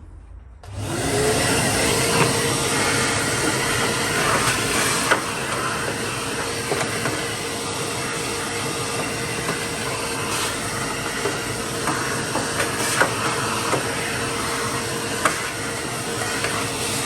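Vacuum cleaner switched on about a second in, spinning up and then running steadily with a hiss and scattered ticks of rust flakes and grit being sucked up.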